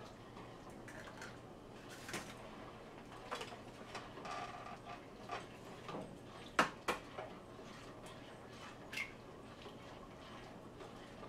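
Eggs being tapped and cracked against a bowl, scattered light taps and clicks with two sharp knocks in quick succession a little past halfway.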